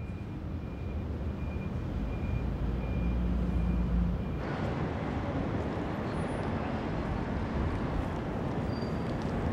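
City street traffic noise: a low vehicle rumble that builds over the first few seconds, with a faint high beep repeating about twice a second, then from about halfway a broader, steady hiss of passing traffic.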